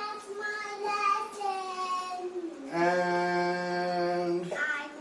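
A child singing, the voice sliding up and down, then holding one long steady note for about two seconds before it breaks off.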